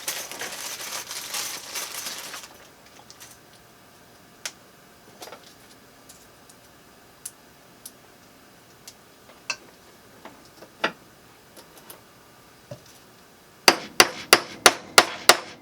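Hand tools working a plastic mounting strip. About two seconds of scraping comes first, then scattered light clicks, and near the end a quick run of about eight sharp clicks, as pixel pliers work pixel nodes into the strip's holes.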